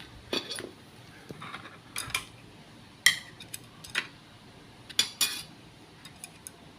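Utensils clinking and knocking against a bowl while the udon is dished up to taste: a scattered series of light clinks about once a second, the loudest about three seconds in.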